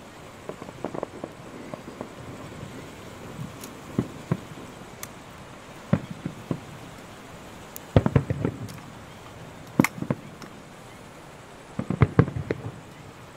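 Distant aerial firework shells exploding: irregular bangs, coming thick and fast in clusters about eight and twelve seconds in.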